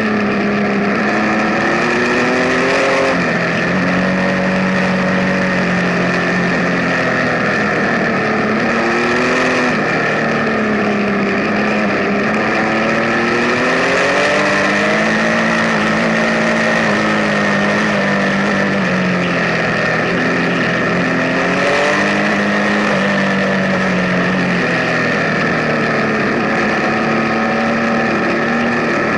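Benelli Tornado Tre 1130 Café Racer's inline three-cylinder engine running on the move, its pitch rising and falling slowly several times as engine speed changes.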